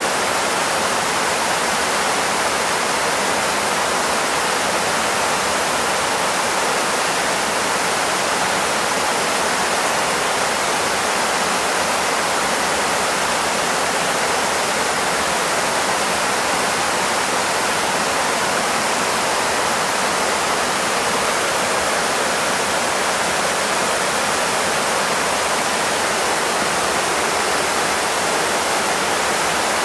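Shallow, fast-flowing river rushing over and around stones: a steady, even rush of water that does not change.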